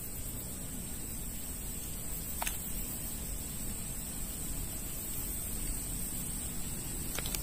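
Outdoor ambience: a steady hiss with a low rumble underneath and a constant high-pitched whine, broken only by two faint clicks, one about two and a half seconds in and one near the end.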